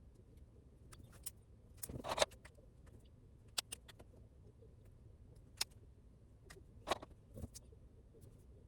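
Scattered light clicks and taps of small objects being handled, with a brief cluster of louder clicks and rustling about two seconds in, over a faint low hum.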